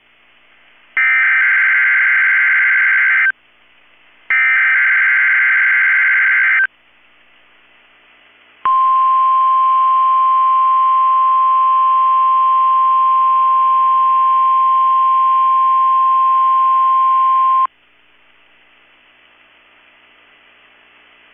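Emergency Alert System SAME header on NOAA Weather Radio: two harsh, buzzy digital data bursts about two seconds long, a second apart. A few seconds later comes the 1050 Hz weather radio warning alarm, a single steady loud tone held for about nine seconds that cuts off abruptly. Together they mark the start of a Required Weekly Test.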